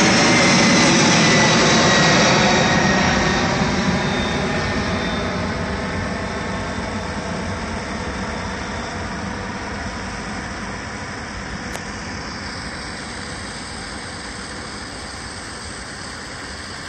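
Boeing 757 jet engines at climb-out power as the airliner flies away: loud engine noise with a whine falling in pitch over the first few seconds. From about two seconds in it fades steadily as the plane recedes.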